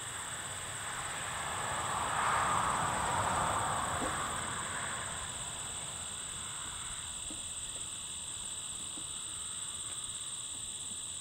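Steady, high-pitched chorus of crickets and other insects. A broad rushing swell builds and fades over it between about two and five seconds in.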